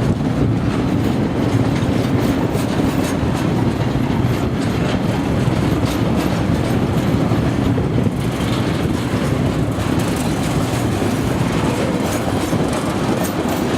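Freight train rolling past at a steady pace, a continuous rumble of wagon wheels on the rails with faint clicks as they cross rail joints.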